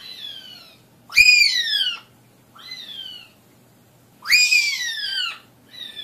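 African grey parrot whistling a repeated call, five times about a second and a half apart. Each call is a quick upward sweep that falls away in a long descending whistle, louder and softer calls alternating.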